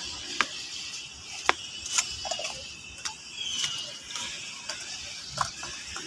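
Irregular light clicks and taps of plastic cups and bottles being picked up and dropped onto a litter pile on pavement.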